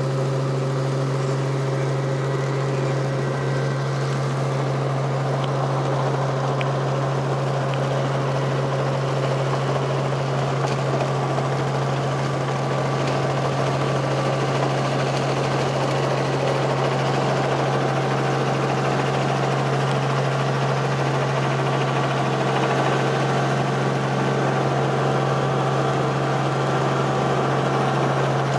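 Helicopter engine and main rotor running, heard from inside the cabin: a loud, steady drone with a strong low hum that holds through the descent to landing.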